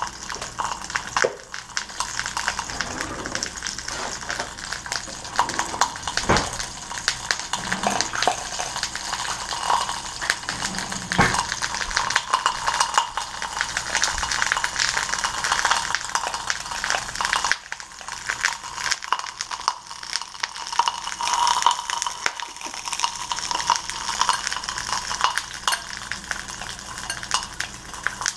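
A metal fork whisking eggs in a glass bowl: fast, continuous clinking of fork against glass, with a short pause about two-thirds of the way through.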